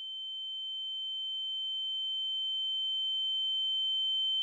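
A steady high-pitched sine tone, an ear-ringing (tinnitus) sound effect, slowly swelling louder, with a fainter lower tone beneath it.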